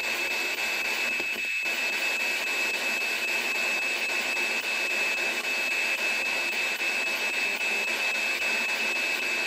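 P-SB11-ANC ghost box's sweeping radio static playing through an external speaker: a steady hiss with a constant high-pitched buzz on top. The buzz goes with the box's temperature gauge going off.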